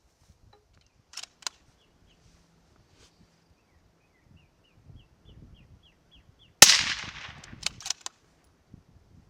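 A 6.5 Creedmoor rifle fires one loud shot about two-thirds of the way in, its report rolling away behind it, followed by a few sharp metallic clicks. Earlier there are two clicks and a run of faint, evenly spaced short high chirps.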